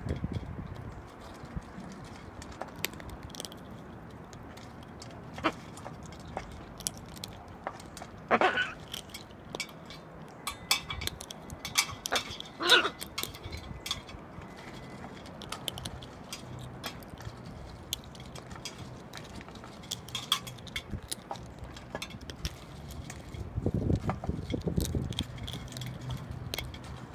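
Blue-and-gold macaws cracking sunflower seeds and knocking their beaks against the feeding dish: scattered sharp clicks and cracks, the loudest a short sound about 12 seconds in.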